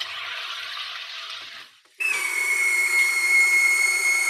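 SodaStream carbonator injecting carbon dioxide into a bottle of cold water: a hiss of gas that fades away. About two seconds in, a loud, steady buzzing whistle takes over as the bottle reaches full pressure and the relief valve vents.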